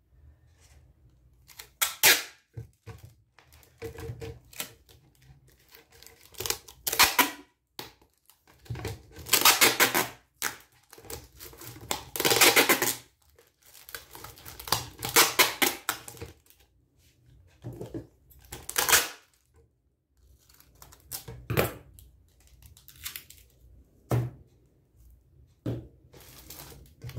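Clear packing tape pulled off its roll in a series of rasping strips, several of them a second or more long, and wrapped around plastic bottles to bind them together, with handling of the plastic between pulls.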